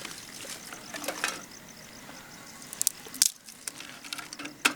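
Scattered sharp clicks and knocks, the loudest a few about three seconds in and one near the end, over a faint background with a high, even pulsing.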